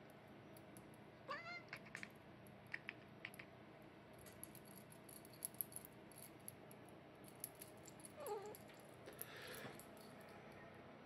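Cat giving two short squeaky meows, one about a second in and one near the end, with faint clicks and rattles in between.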